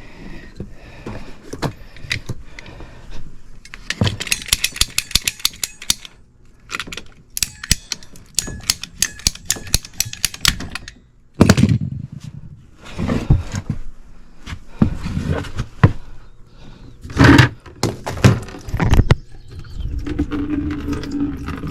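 Condensate drain line being cut into and worked apart: two runs of quick, evenly repeated cutting strokes, then scattered knocks and clunks as the pipe is handled.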